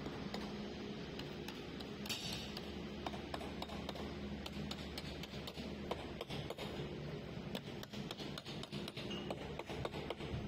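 A hand tool tapping at the door frame of a refrigerated shipping container: many sharp, irregular taps, several a second, over a steady low hum.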